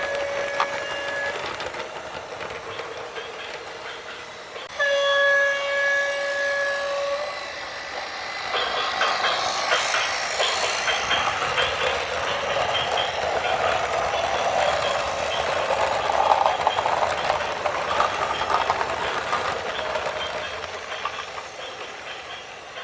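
A horn sounds, ending about a second in, then blows again for about two and a half seconds; from about eight seconds in, a long loud rumble with rattling follows, the sound of a heavy vehicle going by.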